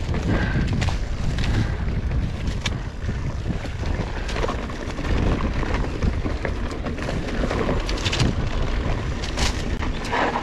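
Wind buffeting an action camera's microphone on a moving mountain bike, a steady low rumble over the rolling of the tyres on a dirt trail, with a few scattered clicks and knocks.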